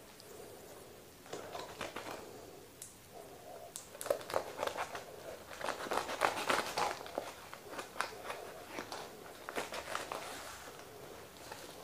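Scissors snipping through a parcel's wrapping, with the wrapping crinkling and rustling in irregular spells, the busiest in the middle.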